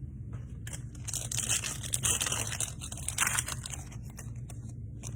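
Foil trading-card pack being torn open and crinkled, loudest from about one to three and a half seconds in.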